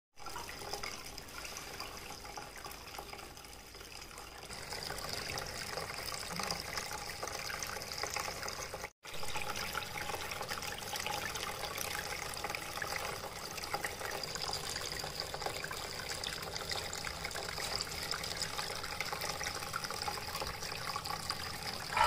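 Water trickling and splashing down the tiers of a small homemade cement tabletop waterfall fountain into its pools, with a brief break about nine seconds in.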